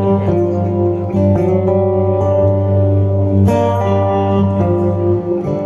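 Live Americana band playing an instrumental passage carried by guitars over a steady held bass, with a new chord struck about three and a half seconds in.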